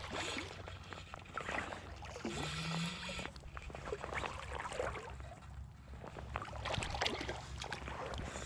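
Splashing and rushing creek water with irregular splashes while a hooked wild brown trout is played.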